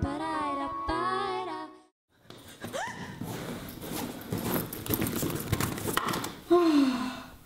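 Music stops, and after a brief silence there is rustling and clicking as objects are handled and rummaged through. A woman makes a short rising vocal sound, and near the end a louder falling sigh.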